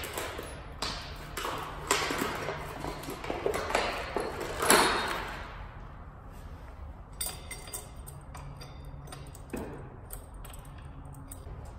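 Metal tools and parts clinking and clattering against each other and the concrete floor, with a louder ringing clank about five seconds in. Lighter ticks and taps follow while a tool is fitted to the engine's crank pulley.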